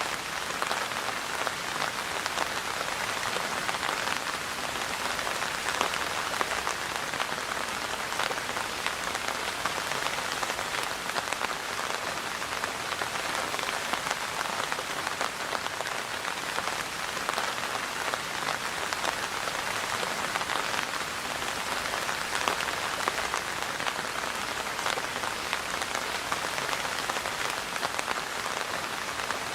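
Steady rain falling and pattering on surfaces, a dense even hiss with countless fine drop ticks.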